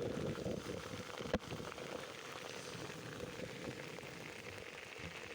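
Heavy rain falling steadily, a dense patter of drops, with one sharp tap a little over a second in.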